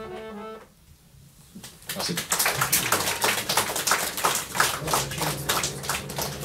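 The last held notes of the accompanying music end within the first second; after a short pause a small audience applauds from about two seconds in.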